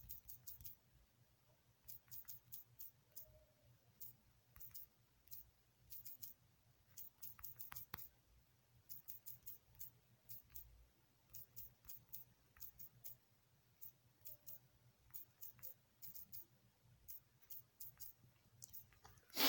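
Faint clicks of typing on a smartphone's on-screen keyboard, one click per keystroke, in irregular runs with short pauses.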